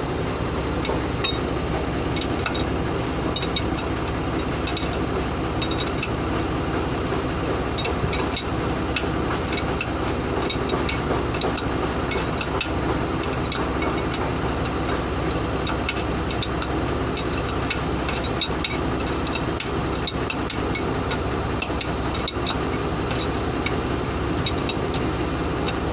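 A truck engine idling steadily, with many light metallic clicks and clinks from a wrench working on the air brake chamber's fittings.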